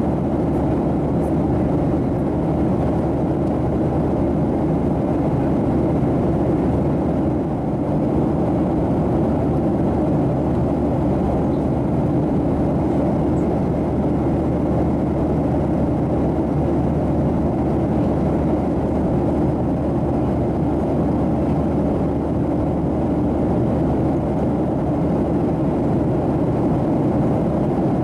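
Steady cabin noise of a Boeing 737-700 in flight: the constant rush of airflow and engine noise, even and unchanging.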